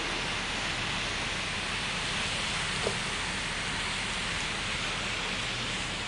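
Steady hiss of heavy rain and water, with a single short click about three seconds in.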